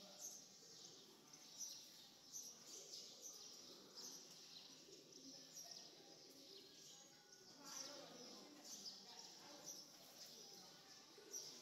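Faint open-air ambience: small birds chirping over and over, with a soft murmur of voices beneath.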